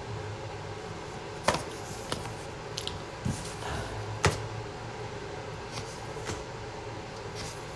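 Quiet room tone with a steady faint hum and a few short, sharp clicks, the clearest about a second and a half in and a little after four seconds.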